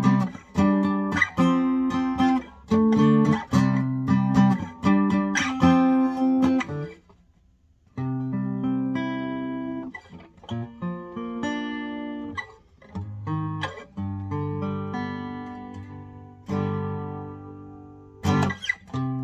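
Gibson J-35 '30s Faded acoustic guitar strummed in full chords, played up the neck. The strumming breaks off for about a second partway through, then goes on with slower chords left to ring out.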